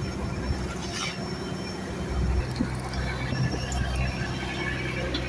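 A fishing trawler's engine running steadily, a low hum that grows fuller about two seconds in, with a thin steady high whine over it and an occasional faint knock.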